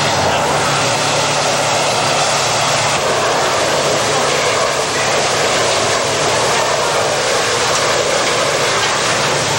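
Fire apparatus engines droning steadily under a loud, even rushing hiss of water streams.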